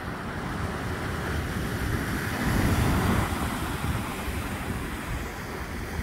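Sea waves washing onto the shore, the surf swelling to its loudest about halfway through and then easing off.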